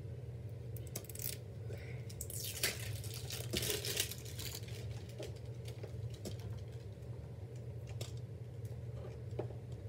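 Small plastic toy capsules and their plastic wrapping being handled and peeled open: scattered sharp clicks and taps, with a stretch of crinkling a few seconds in, over a steady low hum.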